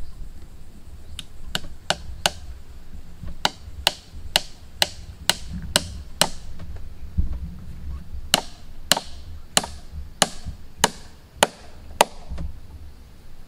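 A run of sharp hand-tool blows on wood, about two a second, each with a short ringing tail. There is a pause of about two seconds between two bursts of striking.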